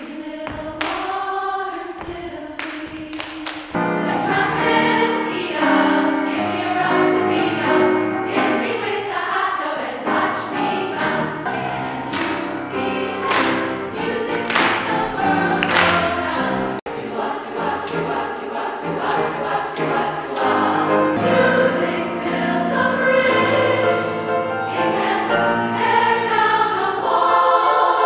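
A women's choir singing an upbeat song in parts, with sharp percussive beats now and then. The full choir sound comes in about four seconds in.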